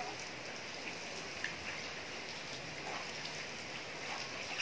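Heavy rain falling steadily on a flooded concrete yard, an even hiss with a few short, sharper splats.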